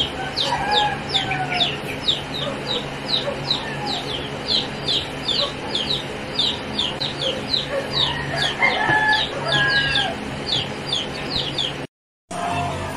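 Chickens peeping and clucking: a steady run of high, short, falling peeps, about three or four a second, over fainter lower clucks. The sound drops out briefly near the end.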